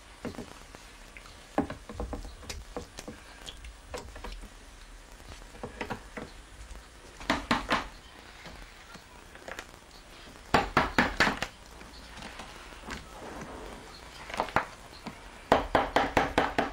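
Wooden mallet tapping a chisel to trim a plaster mold: three runs of four to seven quick sharp taps, the first about seven seconds in, with lighter scattered knocks of the tool between them.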